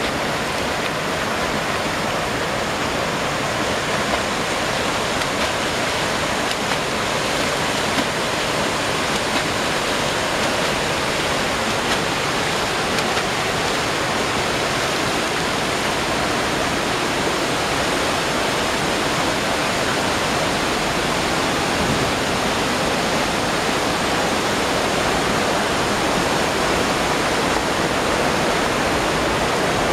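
River water rushing steadily over rocky rapids and small cascades, an unbroken even noise.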